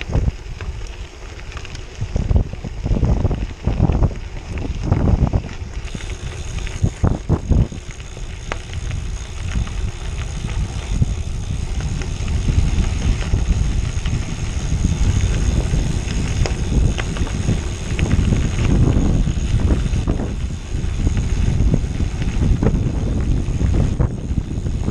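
Bicycle tyres rolling over a gravel road, a steady low rumble, with wind buffeting the microphone in irregular gusts during the first several seconds.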